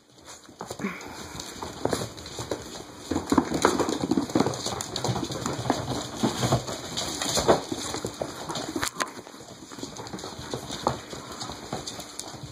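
A litter of puppies scampering on a tiled floor: many quick taps and scrabbles of paws and claws, with a few short low puppy noises among them.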